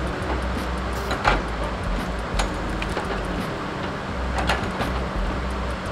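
Diesel engine of a log loader running steadily at work, with a few sharp knocks.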